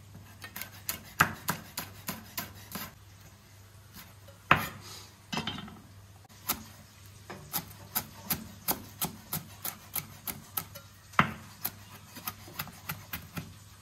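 Chef's knife chopping vegetables on a wooden cutting board: a run of sharp knocks on the board, scattered at first, then steady at about two to three a second from about halfway in.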